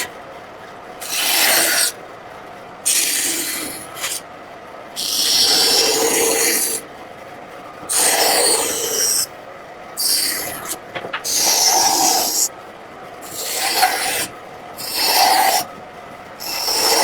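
Hand tool scraping or rasping across wood in repeated strokes, about one every two seconds, each lasting a second or so with short pauses between.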